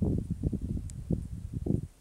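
Wind buffeting the microphone in irregular low gusts, with one faint high tick about a second in.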